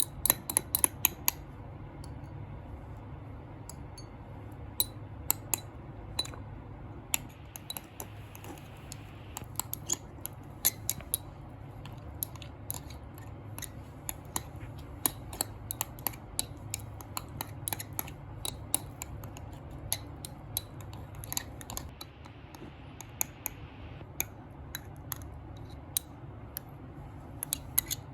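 Slime being pressed and poked, giving sharp, irregular pops and clicks, several a second at times, over a steady low hum.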